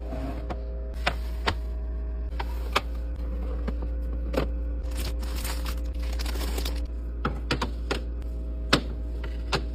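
Food containers and packages being set down and arranged in a refrigerator: scattered sharp clicks and light knocks over a steady low hum.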